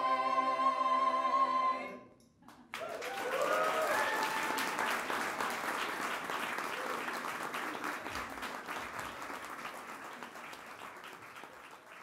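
A vocal ensemble holds a final chord and cuts it off together about two seconds in. After a moment of quiet, the audience breaks into applause with a few cheers, the applause slowly dying away.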